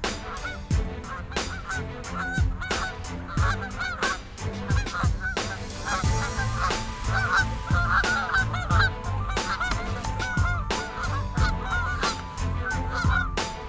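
A flock of Canada geese honking, with many short overlapping honks throughout and frequent sharp clicks among them.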